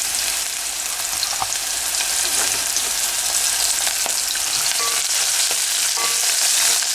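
Chopped onions sizzling in hot oil in a pan as they sauté, a steady high hiss with a few faint ticks.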